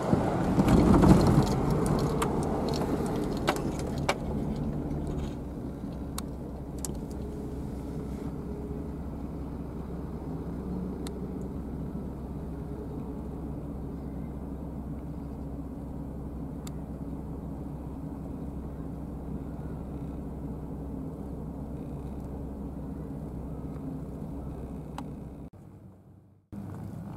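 Steady low engine drone, with wind buffeting the microphone in the first couple of seconds; the drone cuts off abruptly near the end.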